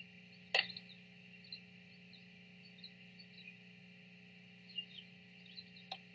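A rooster pecking at a mirror: two sharp taps, one about half a second in and one near the end. Behind them, small birds chirp faintly over a steady low hum.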